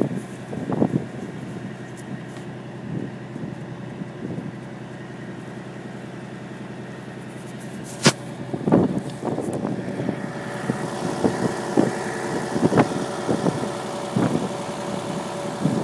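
A vehicle engine idling steadily, with a sharp click about eight seconds in and irregular bumps and thuds through the second half.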